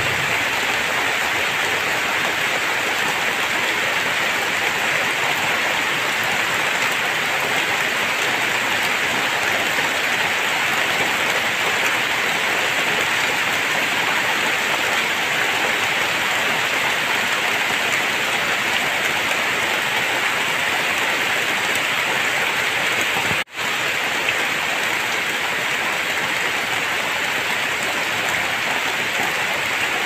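Heavy rain falling steadily on trees, a straw stack and a wet dirt yard, an even hiss, with a momentary break in the sound about three quarters of the way through.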